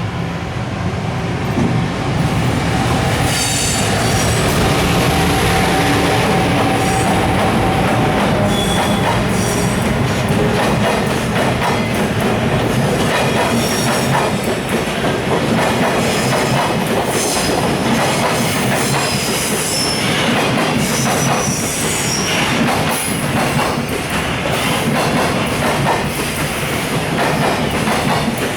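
A long container freight train rolling slowly past as it pulls out of the station: wheels clacking steadily over rail joints, with high-pitched wheel squeal coming and going.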